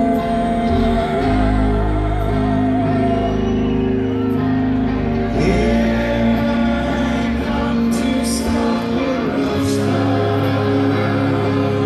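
A live rock band playing through a large concert PA, recorded from the audience: male vocals sung over electric guitar and bass.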